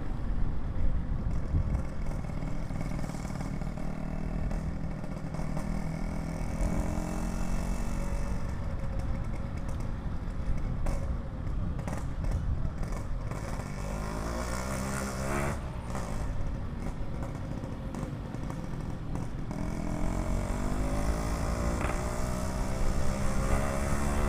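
Yamaha RX-King's two-stroke single-cylinder engine breathing through an aftermarket PK3 exhaust, running under way. Its pitch rises as it accelerates about halfway through, and again toward the end.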